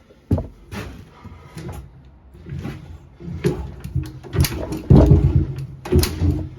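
1947 JAP 5 single-cylinder engine on a Clifford rotovator being cranked over to start, a string of irregular bursts, loudest about five seconds in, without catching. It has not run in years and is reluctant to start.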